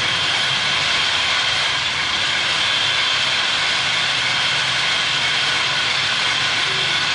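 A loud, steady rattling clatter sounded without pause while the chalice is elevated at the consecration.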